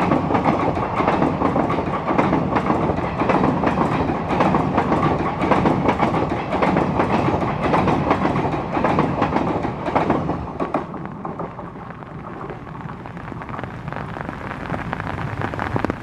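A passing train's wheels clattering rapidly over the rail joints. About ten seconds in the clatter fades, leaving a softer, steady rain noise.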